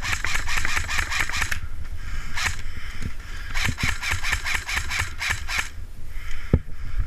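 Airsoft electric rifle firing on full auto: a rapid burst of about a second and a half, a single shot, then a longer burst of about two seconds.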